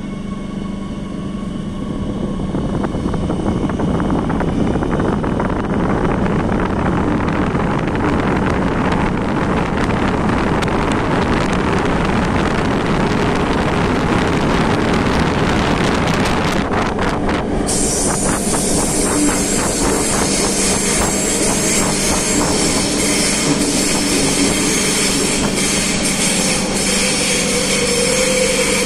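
Madrid Metro series 8000 train running through a tunnel, heard from inside the car. Its running rumble and steady hum grow louder as it picks up speed, a few clicks come about halfway through, and a high-pitched wheel squeal sets in suddenly about two-thirds of the way in and carries on.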